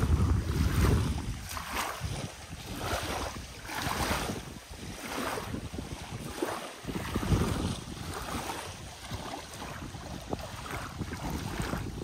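Small lake waves washing against the shore, with wind buffeting the microphone as a low rumble in the first second or so.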